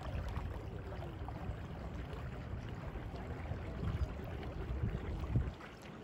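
Wind buffeting the microphone in a low, uneven rumble, with water lapping against the shore.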